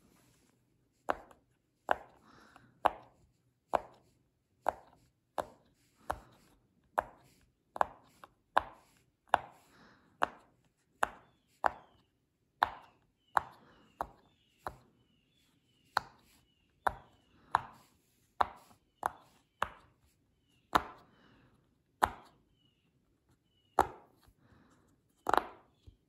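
Rainbow silicone pop-it fidget toy bubbles pressed one after another, each giving a sharp pop, at an even pace of a little over one a second, some louder than others.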